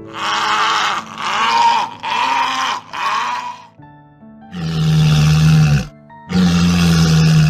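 An animal giving rough, noisy calls over background music: four short calls in quick succession, then two longer, deeper calls.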